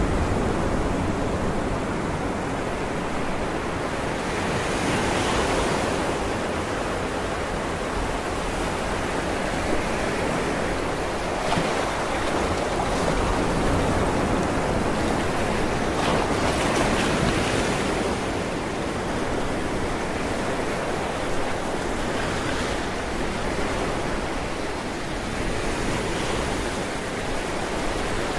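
Sea waves washing on a shore: a steady rushing noise that swells and eases every several seconds.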